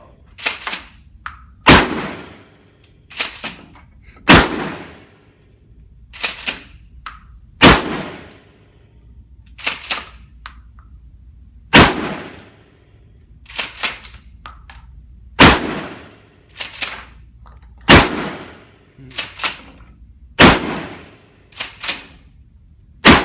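9mm pistol shots fired one at a time and in quick pairs, a shot every second or two with the loudest ones a few seconds apart. Each crack has a short echoing tail.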